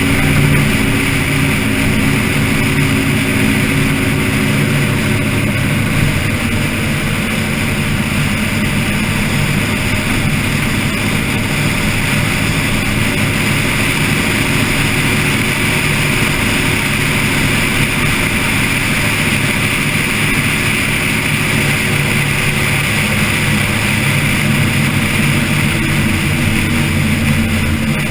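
Car engine running steadily at track speed, heard from an onboard camera with wind and road noise; the engine note is clearest for the first few seconds, then sinks into a steady rush.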